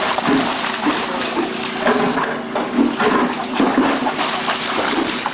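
Shallow floodwater splashing continuously as a barefoot child runs and wades through it, his feet kicking up spray.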